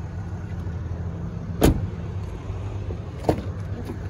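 A steady low mechanical hum with two sharp knocks about a second and a half apart, the first the louder.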